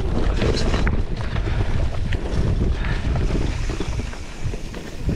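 Wind rushing over the microphone with a steady low rumble and scattered rattling clicks from a mountain bike riding fast down a dirt trail.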